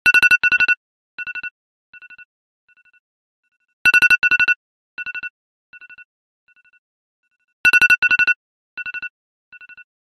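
iPhone alarm ringtone beeping. Each round is two loud trilled beeps at one fixed pitch, then a string of quieter repeats that fade away, echo-like. The round starts again about every four seconds, three times.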